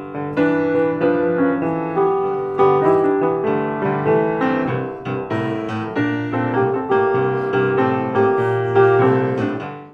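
Closing music played on piano: chords and a melody that come in at once and fade out near the end.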